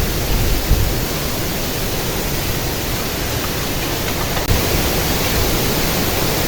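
Strong wind blowing across the microphone: a loud, steady rush with uneven low buffeting rumbles.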